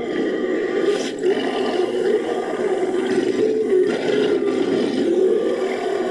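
Continuous monster roaring and growling, a made-up creature sound effect layered from recorded animal and movie-creature roars and a human voice. It runs loud and unbroken, rough and low-pitched.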